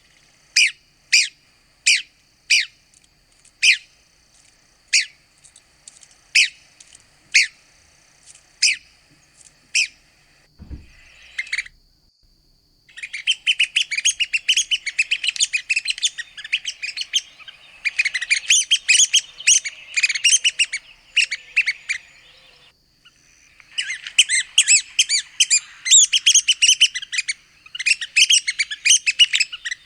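Red-cockaded woodpecker calling: about ten single short, sharp notes roughly one a second, then, after a short gap, long bouts of fast chattering notes.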